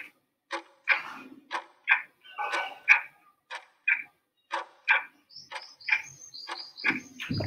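Countdown-timer sound effect: a clock ticking tick-tock, about two ticks a second. A higher, thin ringing tone joins the ticks over the last two seconds as the count nears zero.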